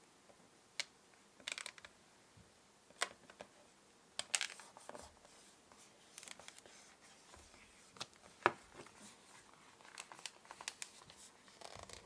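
Light scattered clicks, taps and rustles of fingers pressing a plastic bezel onto a Kindle e-reader and handling the device, with a sharper click about eight and a half seconds in.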